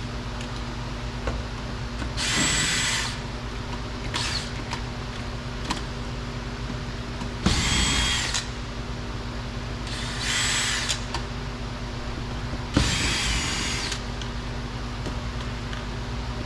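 Cordless drill/driver running in about four short bursts of roughly a second each, with a brief blip between the first two, backing out the Phillips screws that hold a door trim panel.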